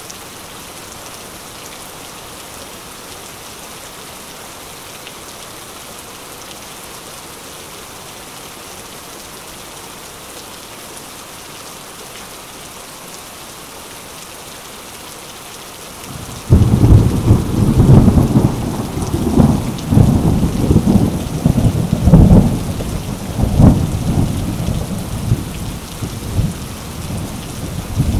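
Steady rain, then a little over halfway through a sudden loud roll of thunder that rumbles on in repeated surges.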